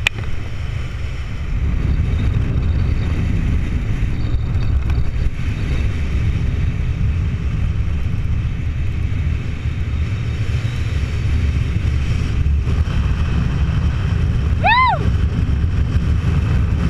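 Steady wind noise buffeting the camera microphone during a descent under an open parachute canopy. Near the end, one short pitched sound rises and then falls.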